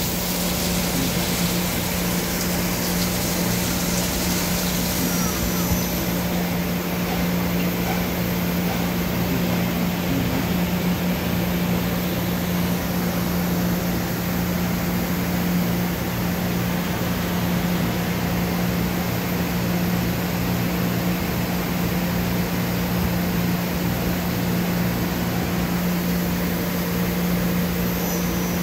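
Main spindle of a Doosan Puma MX1600ST CNC mill-turn lathe running steadily at about 5,000 rpm, a constant low hum with machine whir.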